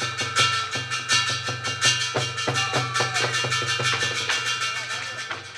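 Fast, percussion-driven lakhon basak theatre music for a stage fight: rapid sharp strikes, several a second, over ringing metallic tones and a steady low drum.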